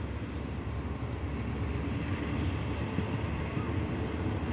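Moving diesel-hauled passenger train heard from inside a coach: steady low rumble of the wheels running on the track, with a thin high whine that rises slightly.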